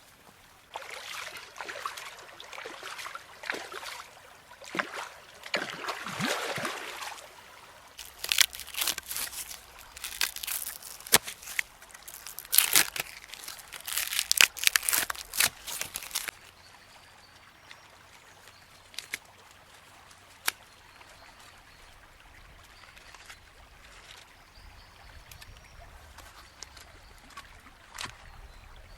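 Thick marinade trickling and sloshing for several seconds. Then birch bark is stripped from a trunk: loud, sharp crackling and tearing for about eight seconds that stops abruptly. After that a quiet, steady outdoor background with a few faint clicks and faint bird calls.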